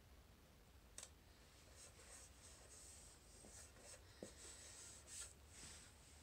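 Faint rubbing of fingertips pressing and smoothing a sticker onto a small black device case, with a sharp click about a second in and a light tap just past four seconds.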